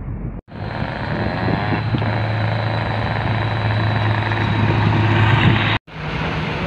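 Diesel engine of a tandem-axle dump truck running steadily as the truck drives up, a low hum growing slowly louder. The sound cuts out abruptly about half a second in and again near the end, where the footage is edited.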